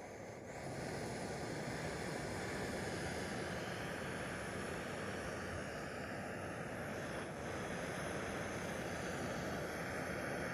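Lexida backpacking gas burner on a screw-on butane canister, hissing steadily under a pot. It rises as the valve is turned up about half a second in.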